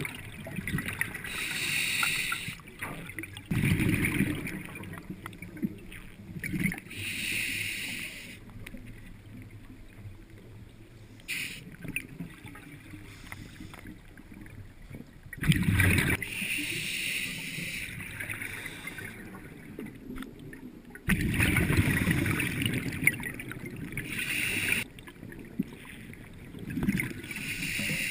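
Scuba regulator breathing underwater: each inhale hisses through the regulator and each exhale bursts out as rumbling bubbles. The breaths repeat every few seconds, with a longer pause around the middle.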